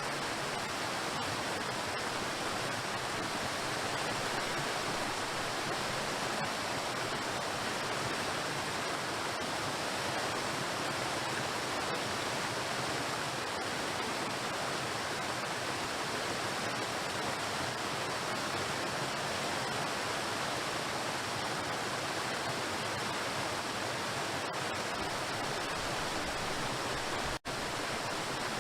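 Waterfall water crashing steadily onto rocks, an even unbroken rush. It cuts out for a split second near the end.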